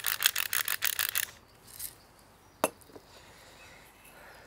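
Hand-turned pepper mill grinding peppercorns: a fast, even rasping ratchet of about eight clicks a second that stops a little over a second in. A single sharp click follows about two and a half seconds in.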